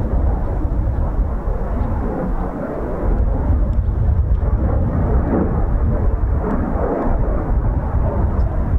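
Jet engine noise from a Eurofighter Typhoon's twin turbofans as it flies past in the circuit: a loud, steady deep rumble that swells slightly about three seconds in.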